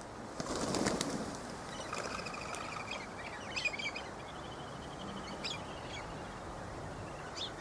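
Galahs' wings flapping as they take off, about half a second in and lasting about a second, followed by scattered high chirps and short trilling bird calls.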